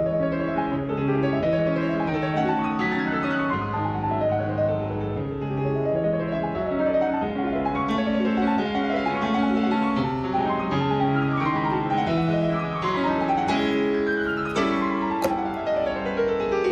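Background piano music, with fast descending runs of notes over steady bass notes.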